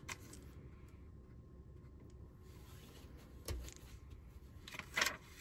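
Faint handling of a birthday card and envelope being opened: quiet paper sounds with a few soft knocks, a dull thud about three and a half seconds in, and two short sharp rustles near the end.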